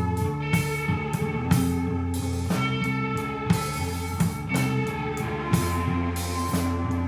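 Three-piece rock band playing without vocals: electric guitar, bass guitar and drum kit, with sustained guitar notes over a steady drum beat.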